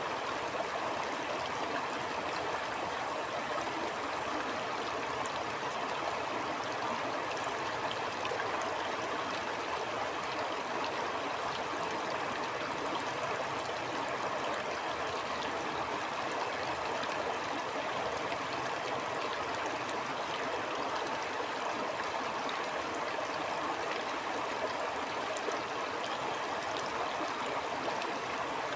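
Stream flowing: a steady, unbroken rush of running water.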